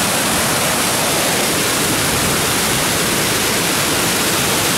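Floodwater rushing steadily out of a dam's open floodgates and pounding into foaming whitewater below, a loud, unbroken, even noise. The gates are opened wide to let off excess water after heavy rain.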